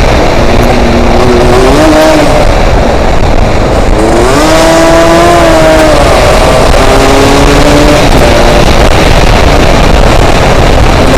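A Yamaha RX-King's 135 cc two-stroke single-cylinder engine running under way, its pitch rising and falling as the throttle is worked. Heavy wind noise on the microphone runs through it.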